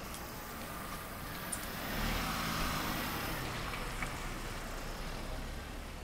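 Volkswagen T-Cross compact SUV driving slowly past close by on wet paving: tyre hiss and a low engine hum that swell about two seconds in and then ease off.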